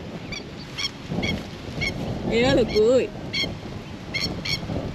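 Wind buffeting the microphone, with short high chirping calls repeating every half second or so. About two and a half seconds in comes one louder, wavering honk-like call lasting about half a second.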